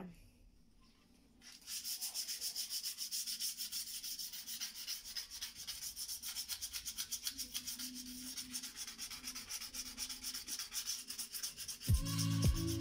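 Hand sanding of glazed ceramic wall tile with a small piece of sandpaper: quick back-and-forth scraping strokes, about five a second, starting about a second and a half in. Music comes in near the end.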